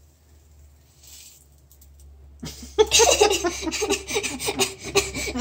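A person bursts into giggling laughter about halfway through, in quick repeated pulses, over a low steady hum.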